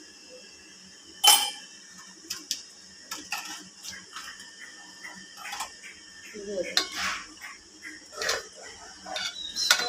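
Metal spoon clinking and scraping against a bowl and cooking pot as a thick paste is spooned into boiling milk, with a sharp knock about a second in and scattered lighter clinks after.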